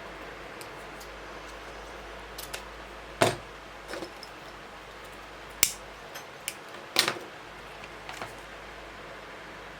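A handful of sharp clicks and taps as small crafting tools and pieces are handled and set down on a table, over a steady faint hiss.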